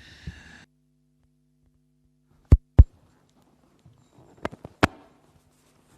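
A few sharp knocks and thumps: two close together about two and a half seconds in, then a quick cluster near the end. A low steady hum runs underneath.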